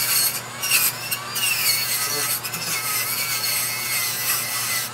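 Dremel rotary tool spinning stacked nylon abrasive wheels against carved wood, grinding off the fuzz and seam. It gives a steady rubbing hiss over a motor whine that wavers in pitch as the wheels are pressed into the wood.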